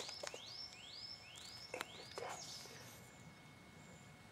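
A bird singing a run of about six short rising whistled notes, two to three a second, which stop about two and a half seconds in. Two soft clicks sound among the notes.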